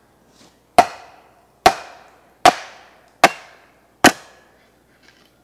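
Wooden club striking the back of an axe five times, about 0.8 s apart, driving it down to split a green birch quarter in half. Each blow is a sharp knock with a short ringing tail.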